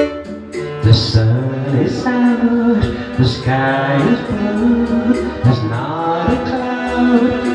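Pre-recorded backing music with a man singing over it live through a microphone and PA.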